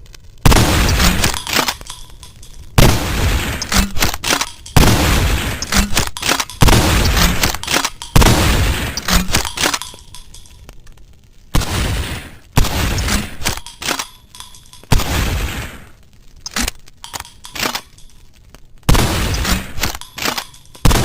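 Double-barrel shotgun firing: about nine loud blasts, one every two seconds or so, each dying away, with short sharp metallic clicks between the shots.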